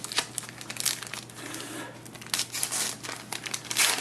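Crinkling of a trading-card wrapper being handled and opened to get at the box topper: an irregular run of short crackles, busier and louder near the end.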